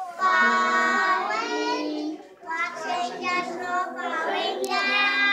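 Young children singing together, holding long notes, with a short break about two seconds in.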